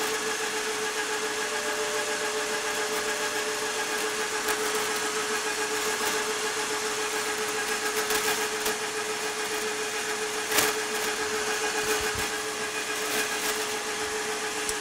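Metal lathe running and taking a turning cut along a steel drill-rod shaft: a steady mechanical tone with an even hiss of cutting, and one sharp click about ten seconds in.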